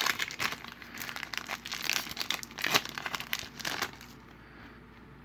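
Foil trading-card pack wrapper being torn open and crinkled while the cards are pulled out, a dense crackling that stops about four seconds in.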